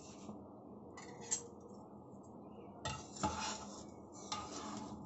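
A metal spoon stirring thick rajma curry in a pressure cooker, clinking sharply against the pot a few times, loudest about three seconds in.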